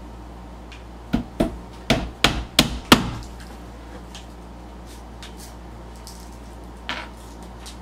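Hammer tapping a small nail into the wooden panel of a cube organizer: six quick taps in about two seconds, the last the hardest, then one lighter knock near the end.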